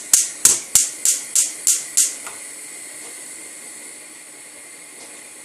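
Gas stove burner being lit: the spark igniter clicks about three times a second, then stops about two seconds in as the burner catches, leaving a steady hiss of the gas flame.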